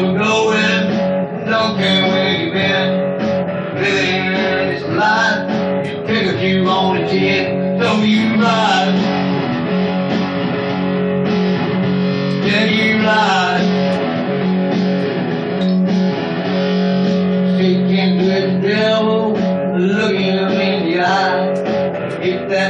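Music led by guitar: steady held notes with melodic lines gliding over them.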